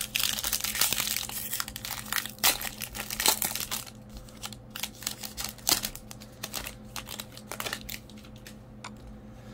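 A foil Topps baseball card pack wrapper being torn open and crinkled by hand. There is a dense crackle for the first few seconds, then scattered crinkles as the wrapper is peeled back from the cards.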